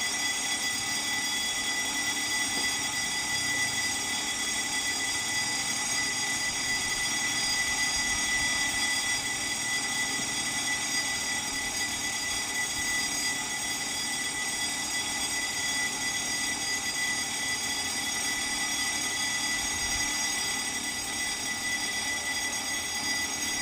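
Vietnam Railways D19E diesel locomotive approaching slowly along the track, its engine running, under a steady high-pitched whine that does not change; no horn sounds.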